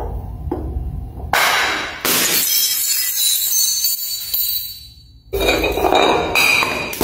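A glass bottle full of water beads smashing on marble stairs: a sudden crash of breaking glass with high tinkling that fades out over about three seconds. After a pause, a fresh series of loud knocks of a second glass bottle, a champagne bottle, on the stone steps.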